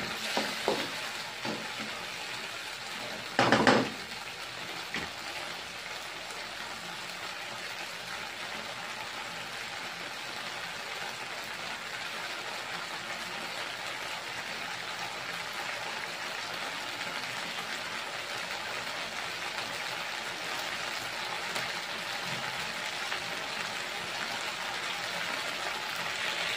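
Sardines and squash in tomato sauce sizzling steadily in a wok. A spatula scrapes the pan in the first second, and there is a short clatter about three and a half seconds in.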